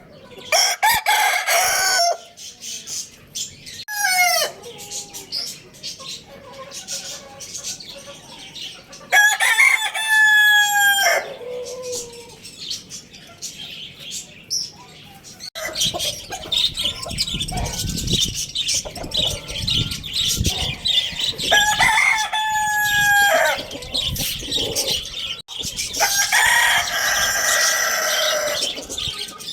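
Roosters crowing, several separate crows in turn, with shorter clucking calls between them.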